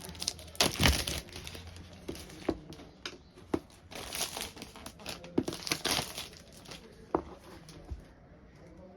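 Keyboard packaging crinkling and rustling as it is handled, in several irregular bursts, with sharp clicks and knocks between them.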